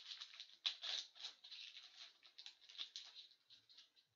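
The foil wrapper of an SP Authentic hockey card pack crinkling and tearing as it is opened by hand: a dense run of faint crackles that dies away near the end, once the cards are out.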